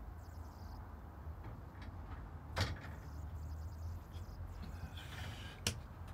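Gloved hands handling small metal parts and wire clips on a workbench: two sharp clicks, the first about two and a half seconds in and the second near the end, with a brief hiss just before the second, over a steady low hum.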